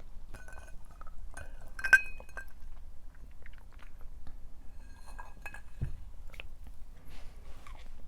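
Close-up chewing of a stir fry of shredded pork and Chinese cabbage. A sharp clink of glass or tableware about two seconds in is the loudest sound, with a brief ring, and a lighter clink comes about five seconds in.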